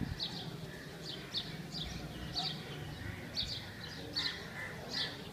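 A small bird chirping over and over, short high chirps about two a second, over a low outdoor background hum.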